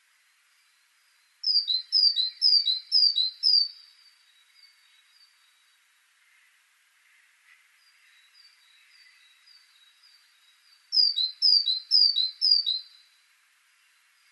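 Great tit singing its two-note 'teacher-teacher' song: a burst of about five quick repeats of a high note dropping to a lower one, then a second burst of about four near the end, with fainter similar notes in between.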